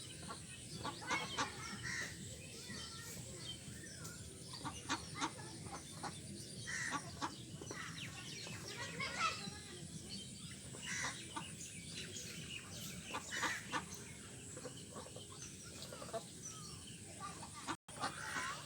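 Domestic fowl calling: many short, quick calls and clucks, one after another, over a steady background. A split-second dropout near the end.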